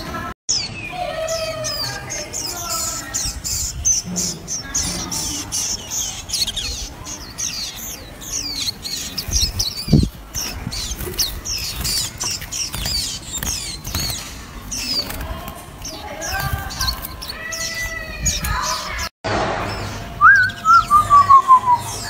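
Warbling white-eyes singing: a rapid, high-pitched twittering of short chirps and trills, with some lower warbled notes mixed in. Near the end comes a run of whistled notes stepping down in pitch.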